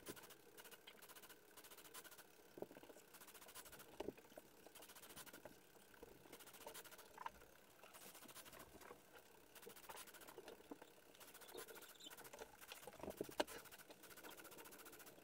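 Faint, rapid pattering and clicking of a LEGO Mindstorms EV3 pen plotter as it dots a pen onto paper and steps its carriage, sped up. A few taps stand out, the loudest near the end.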